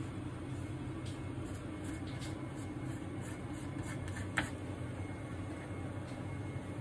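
Bamboo spatula scraping leftover urushi lacquer off a glass plate in short repeated strokes, with a sharper click about four seconds in, over a steady low hum.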